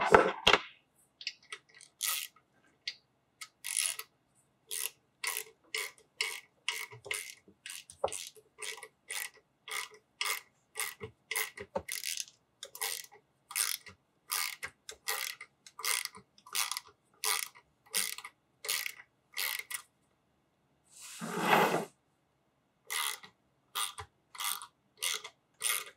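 Hand ratchet wrench worked in quick back-and-forth strokes, about two a second, running a bolt in. A short pause, one longer rasp a little after 21 seconds in, then more strokes.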